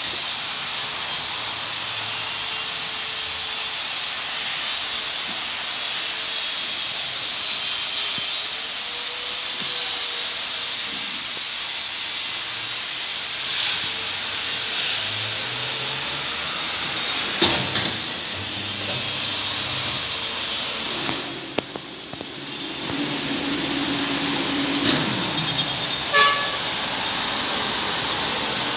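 Hood-type shrink-wrapping machine running with a steady hiss, with film being sealed around a magazine. A sharp clack comes about two-thirds of the way through, and a few lighter knocks follow near the end.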